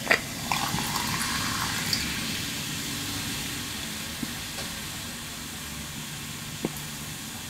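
Water being poured for instant noodles, a steady hiss that fades slowly, with a few light clinks in the first two seconds and a small tap near the end.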